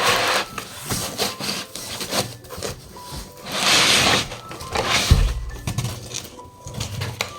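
Cardboard box and protective packing rubbing and scraping as a sealing machine is unpacked by hand, in irregular scrapes with a longer one about halfway through and a dull thump about five seconds in.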